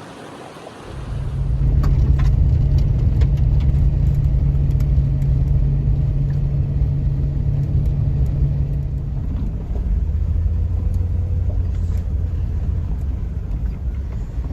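A motor vehicle's engine running with a loud, steady low rumble that starts about a second in. Its note drops to a lower pitch about nine and a half seconds in, and light ticks sound now and then.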